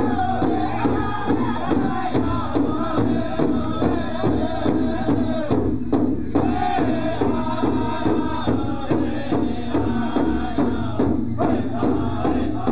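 Powwow drum group: singers chanting over a steady, even beat struck on a large drum.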